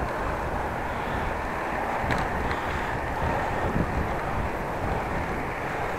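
Steady rush of wind and road noise from a bicycle riding along a road, with a faint click about two seconds in.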